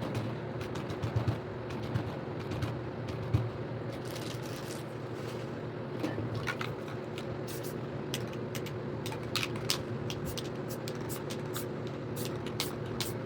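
Aerosol spray paint can sprayed in short bursts: a brief hiss about four seconds in, another soon after, then many quick taps of the nozzle in the second half, over a steady low hum.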